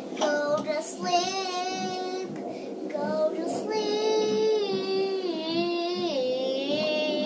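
A high voice singing a slow melody of long held notes with vibrato, the tune stepping downward through the middle.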